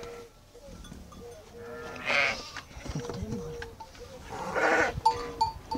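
Sheep bleating: two short bleats, about two seconds in and again near the end.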